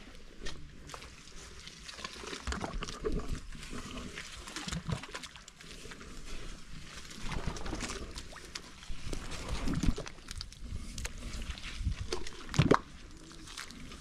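A jembe hand hoe dragging and slapping wet mud through shallow water, with irregular squelching and sloshing, and one louder thud near the end.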